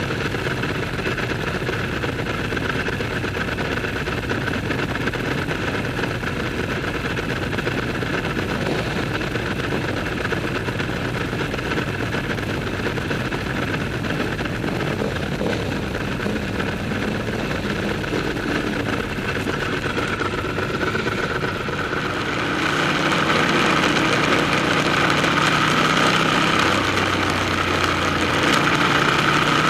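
Ducati motorcycle engines running through a tunnel, steady at first; about three-quarters of the way in the sound grows louder, with stronger engine tones.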